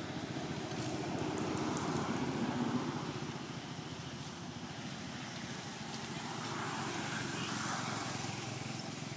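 A motor vehicle engine running steadily, swelling louder about two seconds in and again about seven seconds in.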